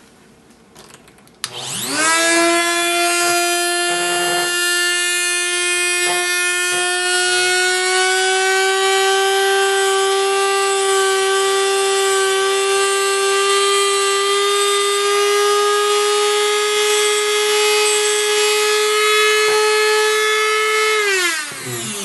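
Eastwood tungsten grinder switched on about a second and a half in, its motor spinning up to a steady high-pitched whine as a 1/32-inch tungsten electrode is ground to a 10 degree point on its diamond wheel, then spinning down near the end.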